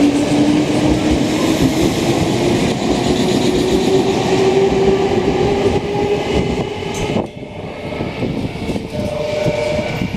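Nankai 6000-series electric train accelerating away from the platform: a motor whine climbing slowly in pitch over wheel rumble. It drops away suddenly about seven seconds in, and a steady tone from another approaching train comes in near the end.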